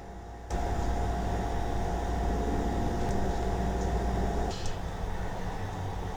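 Kitchen fan running with a steady hum and hiss. The hum's tone drops out about four and a half seconds in, and there are a few faint ticks.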